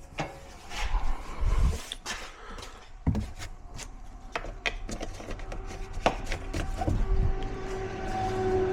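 Irregular clicks, knocks and rubbing of parts and tools being handled, over a low rumble. A faint steady hum comes in about halfway through and grows louder toward the end.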